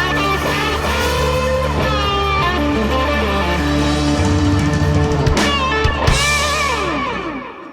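Instrumental song ending led by electric guitar with sliding notes, fading out near the end.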